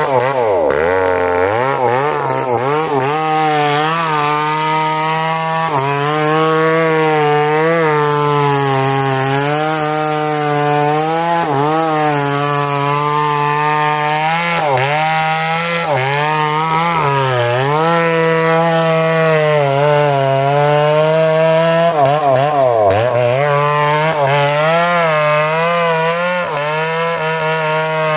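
Two-stroke chainsaw cutting into the trunk of a large durian tree, its engine held at high revs, with the pitch sagging several times as the chain bites into the wood and then picking back up.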